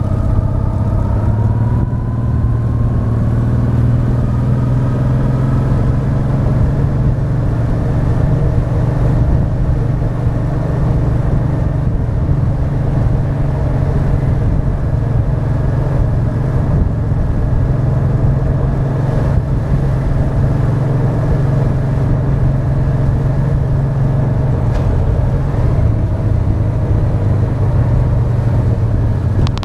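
Honda Deauville 650's V-twin engine running steadily under way, heard from the front of the moving motorcycle. Its pitch climbs over the first few seconds as the bike accelerates, then holds steady.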